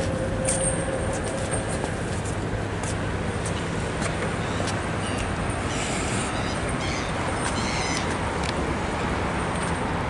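Steady city traffic noise, with a few short high-pitched gull calls about six to eight seconds in.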